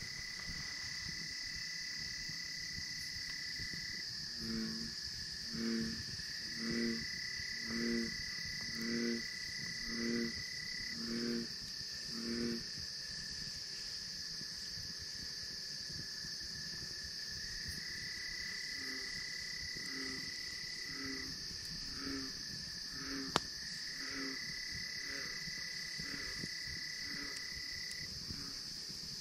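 Bullfrogs calling: a run of about eight deep calls, roughly one a second, then a fainter run later. Behind them crickets sing in a steady high chorus, with a higher trill that starts and stops. A single sharp click comes a little past the middle.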